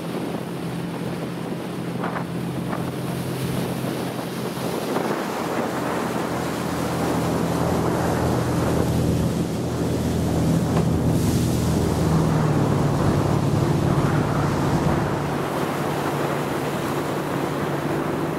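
Motorboat engine running steadily at speed, with water rushing past the hull and wind buffeting the microphone; the engine and water get somewhat louder partway through, with a brief gust of wind noise.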